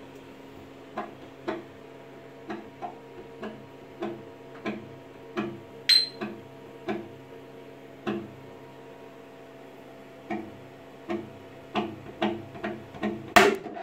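Tall thin-walled 3D-printed plastic vase being rocked back and forth on the printer bed, its plastic clicking and crackling with each push, about once or twice a second, with a short high squeak about six seconds in. Near the end comes a louder burst of cracks as the print breaks free of the bed. A steady low hum runs underneath.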